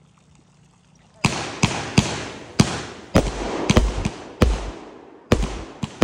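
California King 200-gram consumer firework cake firing: starting about a second in, a rapid string of sharp bangs, about nine in five seconds, each trailing off in an echoing rumble.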